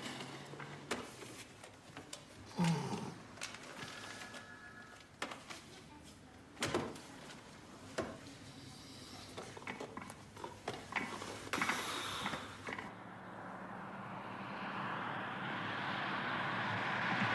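Scattered knocks, clicks and a few thuds, then from about thirteen seconds in the steadily swelling rushing noise of an approaching vehicle.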